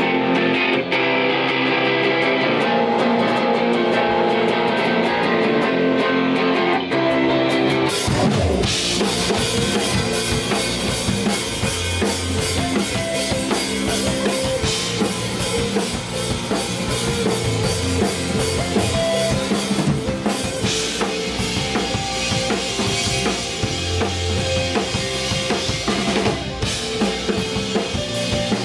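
Live rock band: an electric guitar plays a riff alone, then about eight seconds in the drum kit and bass guitar come in and the full band plays on.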